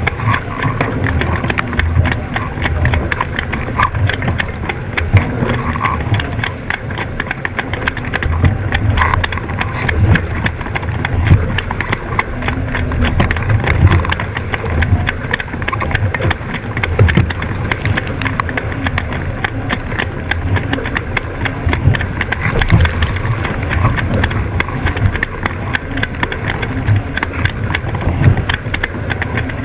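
Wind buffeting the onboard action-camera microphones and water rushing past the hull of an 18ft skiff sailing at speed, a loud, uneven low rumble with irregular knocks as the hull meets the chop.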